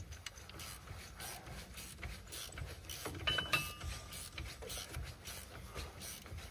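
Faint, irregular clicking and clattering of hand tools working on a side-by-side's wheel hub and brake. There is a brief high squeak about three and a half seconds in.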